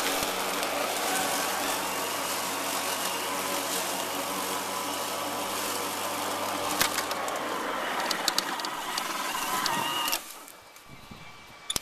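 RYOBI 40V brushless cordless lawn mower running, its motor and blade giving a steady whir with a few sharp clicks. The sound drops off abruptly about ten seconds in, followed by a brief knock.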